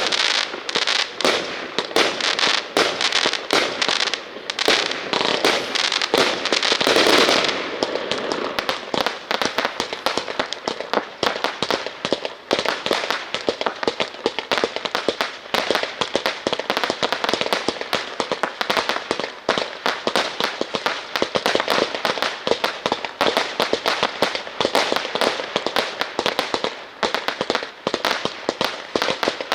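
Fireworks going off in a fast, continuous barrage of sharp cracks and pops, with a louder rush of noise about seven seconds in.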